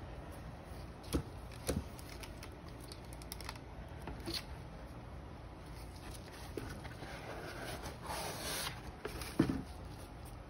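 Handling noise from a sneaker and its shoebox being moved by gloved hands: two light knocks a little after a second in, a brief rustle about eight seconds in, and a sharper thump just after nine seconds.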